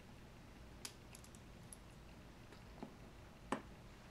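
A few faint, sharp clicks and taps from handling the iPhone 4S logic board as it is lifted out of the phone's housing and laid down, the loudest click near the end.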